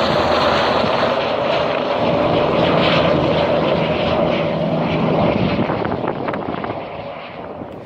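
Medical helicopter's rotor and engine noise, loud and steady, then fading away over the last few seconds as the helicopter flies off.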